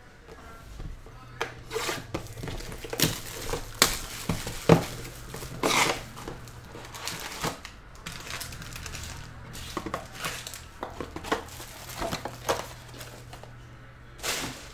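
Cardboard trading-card hobby box being torn open and its wrapped card packs pulled out and set down, in a string of irregular rustles, crinkles and light taps, busiest in the first half.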